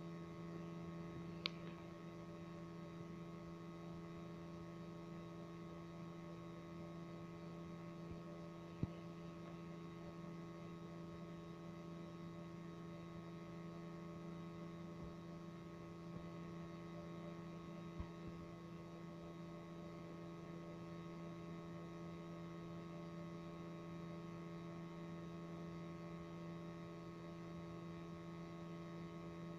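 Steady electrical hum with several fixed tones, and a few faint clicks.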